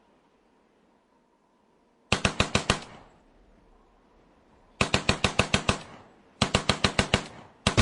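Automatic gunfire: three short bursts of rapid shots, about a dozen a second, each lasting well under a second, after about two seconds of silence. A fourth burst begins at the very end.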